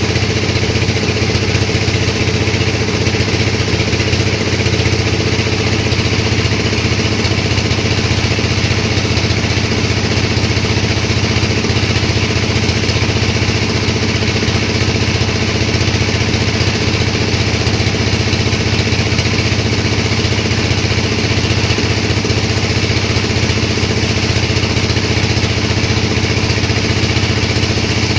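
Sawmill machinery running with a loud, steady engine-like sound that does not change.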